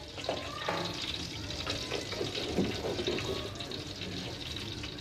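Melted ghee heating in a large aluminium cooking pot over a fire: a faint steady hiss with a few soft ticks.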